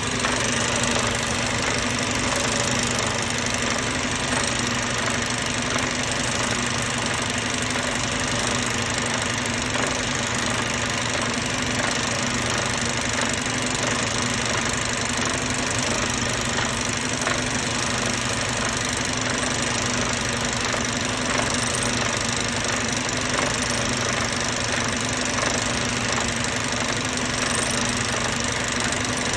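Mercedes-Benz Euro 5 engine idling steadily, an even running sound with a constant low hum.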